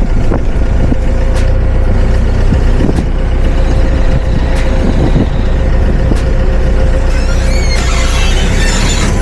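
Forklift engine running steadily with a constant whine, and a heavy low rumble underneath. A few knocks sound along the way, and near the end there is a brief high squeal, like metal scraping.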